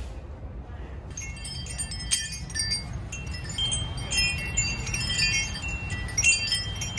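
Hanging metal wind chimes ringing: many high, overlapping chime tones, starting about a second in.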